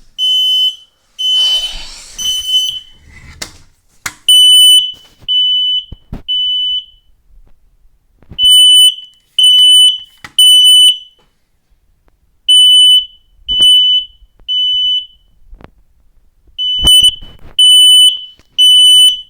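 Kidde 10-year smoke alarm sounding in the temporal-three fire-alarm pattern: three loud, high-pitched beeps of about half a second each, then a pause of about a second and a half, repeating about every four seconds. There is a burst of rustling in the first few seconds.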